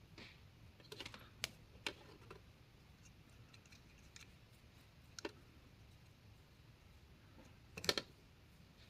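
Scattered light clicks and taps of small tools and parts being handled on a workbench: a few sharp ones about a second in, one more midway, and the loudest cluster near the end.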